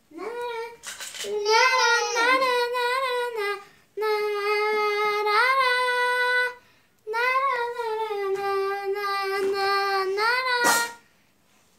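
A child singing a wordless tune in long, high, wavering notes, in three phrases with short breaks between them, ending with a short loud rising squeal near the end.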